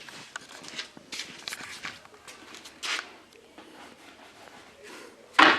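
Handling noise while fitting wooden pieces: scattered light knocks, rustles and shuffling. A louder knock comes about three seconds in, and a loud, short double scrape or thump comes near the end.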